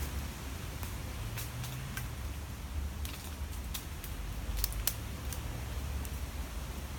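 Scattered crackles and snaps of twigs and dry leaf litter, a few close together around the middle, over a steady low rumble.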